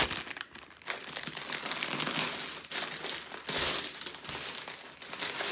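Clear plastic sleeve crinkling and rustling as a rolled canvas is pulled out of it: a continuous, uneven rustle full of small crackles.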